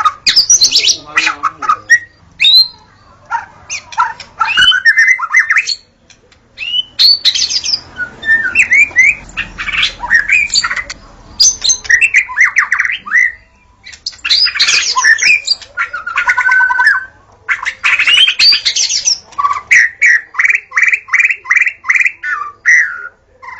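Wild white-rumped shama singing: loud, varied phrases of sweeping whistles and quick runs of short notes, broken by short pauses, with a fast series of about eight repeated notes near the end.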